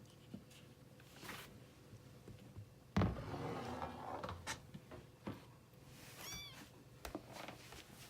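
Two domestic cats in a tense standoff. A sudden loud burst of cat noise comes about three seconds in and lasts about a second, and a short high-pitched meow follows about six seconds in.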